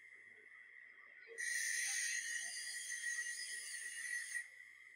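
Metal lathe cutting into a motorcycle wheel hub: a steady high whine, with a hissing scrape of the cutting tool that starts sharply about a second and a half in and stops about three seconds later.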